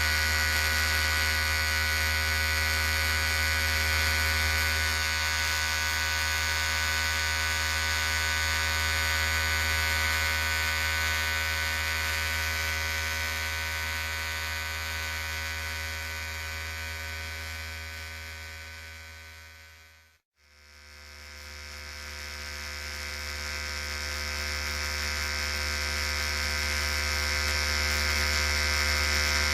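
Electric hair clipper buzzing steadily, a motor hum with a high whine over it. About two-thirds through it fades smoothly down to a moment of silence, then fades back up to the same buzz.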